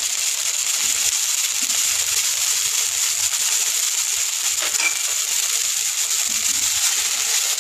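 Sliced vegetables and sprouted mung beans sizzling steadily in a little hot sunflower oil in a nonstick wok.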